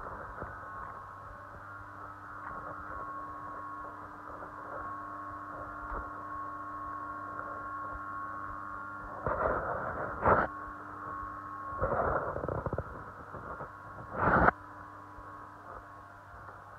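Steady machine hum with a constant whine, typical of a vacuum truck's engine and pump running while it loads water through its hoses. Three short, loud rushing bursts break in during the second half.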